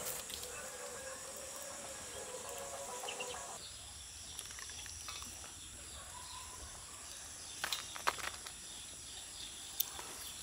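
Quiet outdoor ambience of steady, high-pitched insect chirring, with a few short sharp clicks about eight seconds in and again near the end.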